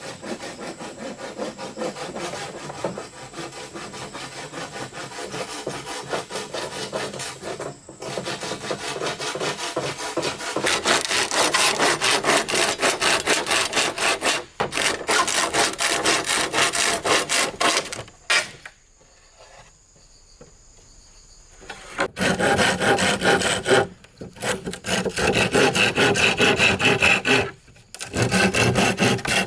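Hand saw cutting bamboo in long runs of fast back-and-forth strokes. The sawing pauses for about three seconds midway, and a steady high insect drone shows through.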